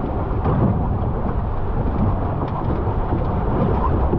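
Wind rumbling on the microphone and water rushing past the hull of a GP14 sailing dinghy under sail, a steady low noise throughout.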